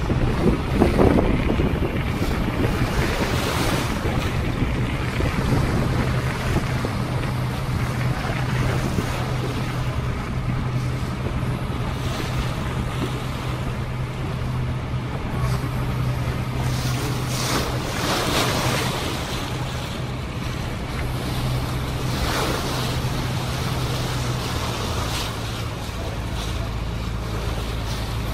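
Tour boat's engine running with a steady low hum, under heavy wind buffeting the microphone and the wash of water along the hull, with louder gusts now and then.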